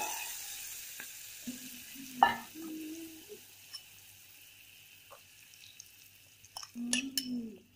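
Hot oil sizzling over chili powder, garlic and sesame seeds, loudest at first and dying down. A spoon clinks and scrapes against the bowl as the mixture is stirred.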